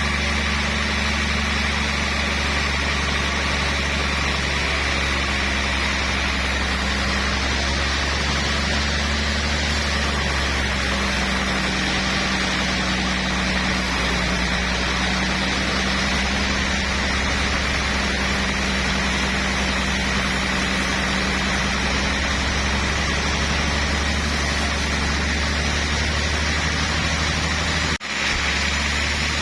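Sawmill machinery running steadily: a constant engine hum under a steady high whine. It cuts out for a moment near the end.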